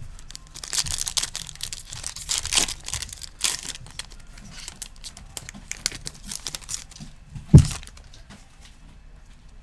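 The wrapper of a sealed trading card pack being torn open and crinkled, in a run of ripping and rustling strokes during the first few seconds, followed by softer rustling. One sharp thump, the loudest sound, comes a little after seven seconds in.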